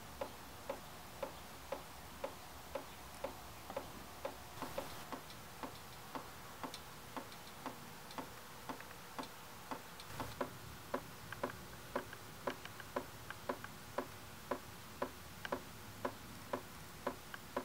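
Brake fluid dripping from the open bleeder screw of a rear brake caliper into a drain pan during gravity bleeding: small sharp drips, evenly spaced at about two a second.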